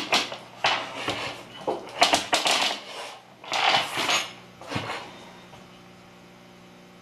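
Computer keyboards being moved and set down on a desk: a run of clattering knocks and scrapes that stops about five seconds in, leaving a faint steady hum.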